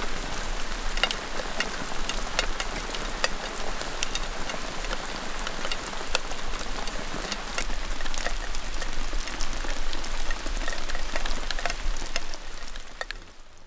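Steady rain falling, with many separate drops tapping sharply close by. It fades out near the end.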